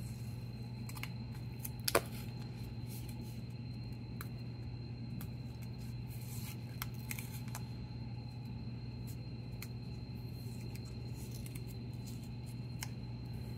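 Blue painter's tape being peeled and picked off a small cardboard mailer: scattered soft crackles and small clicks of tape and card, with one sharper click about two seconds in. A steady low hum runs underneath.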